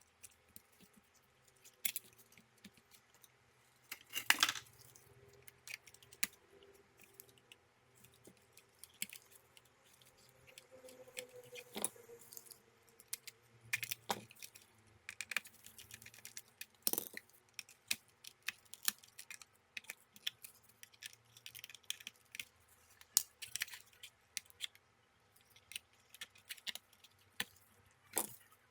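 Small scattered clicks and taps of plastic and metal tools on a laptop's internals as cable connectors are unlatched and pulled from the motherboard, with a few sharper clicks about four seconds in and again around twelve to seventeen seconds.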